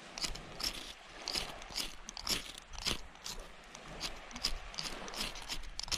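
Ferro-rod flint striker scraped again and again down its rod to throw sparks onto tinder to light a fire: short, sharp scrapes about two or three a second.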